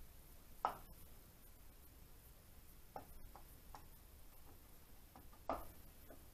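Scattered light clicks and knocks from parts and a tool being handled at the timing side of an Ariel motorcycle engine under assembly. The two loudest come about a second in and near the end.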